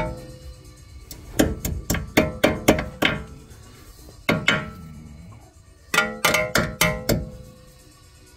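Hammer tapping on metal in quick runs, each blow ringing briefly: about seven taps, then two, then about five more.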